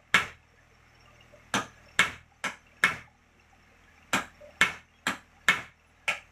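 A series of sharp knocks, about ten in all, mostly in pairs roughly half a second apart.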